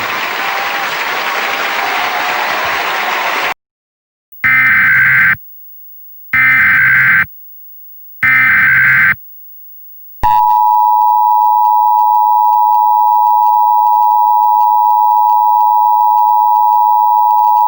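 A loud noisy rush cuts off about three and a half seconds in. Then come three one-second bursts of the Emergency Alert System's SAME header, a harsh digital data squawk, with gaps of silence between them. About ten seconds in, the steady two-tone EAS attention signal starts and holds.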